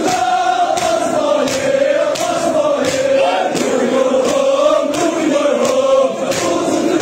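A large crowd of men chanting a noha in unison, with rhythmic matam: hands striking chests together in a steady beat, roughly three strokes every two seconds.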